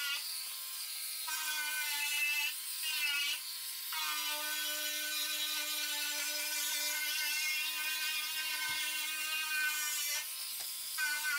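Handheld Dremel rotary tool with a sanding disc grinding the edge of a subwoofer cabinet's driver opening to enlarge it: a steady high motor whine over a gritty sanding hiss. The pitch wavers a little and dips briefly a few times as the disc is worked around the edge.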